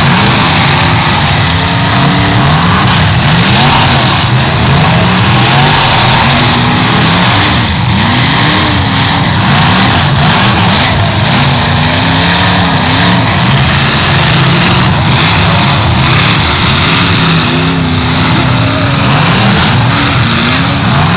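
Several eight-cylinder demolition derby cars' engines revving together, their pitch repeatedly rising and falling as they accelerate and back up across the arena.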